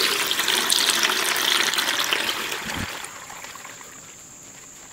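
Old engine oil mixed with water pouring from the oil pan of a Jaguar 2.4-litre straight-six into a plastic bucket: a steady splashing stream that thins and tapers off over the last couple of seconds. The water in the oil comes from the engine having sat outside.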